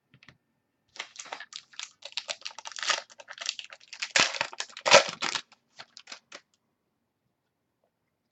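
A trading-card pack wrapper being torn open and crinkled, with the cards handled: a dense run of quick crackles, loudest about four to five seconds in, that stops after about six seconds.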